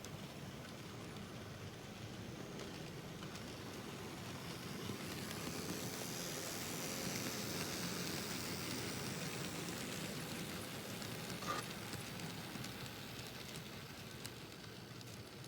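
N-scale model train, a Kato SD70M locomotive pulling grain cars, running along the track. It is a steady rumbling whir that grows louder to a peak about halfway through and then fades as the train passes by.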